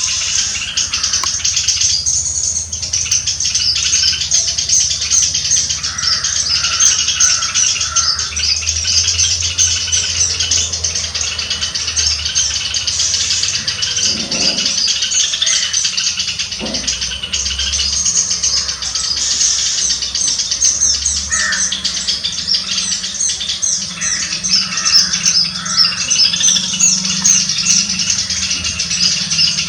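A flock of many small birds chirping and calling all at once: a dense, unbroken chorus of short, high, overlapping chirps.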